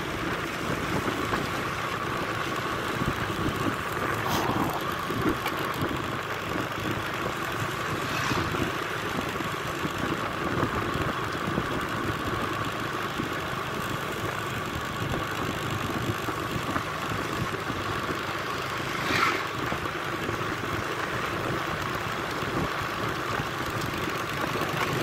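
A motor vehicle's engine running steadily at idle, with a few brief louder sounds standing out above it.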